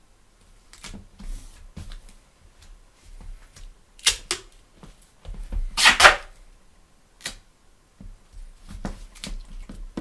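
Orange gaffer tape being pulled off its roll and pressed onto a Bible's spine: scattered clicks and taps of handling, two sharp strokes about four seconds in and a louder, longer rasp of tape tearing away from the roll about six seconds in.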